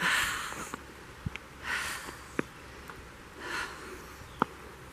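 A person breathing audibly close to the microphone in the cold: three soft breaths, evenly spaced, with a few faint clicks from handling the phone in between.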